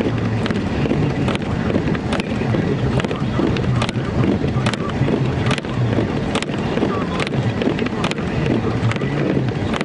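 Car cabin noise while driving in snow: a steady low engine and road rumble, with a sharp tick about every 0.8 seconds.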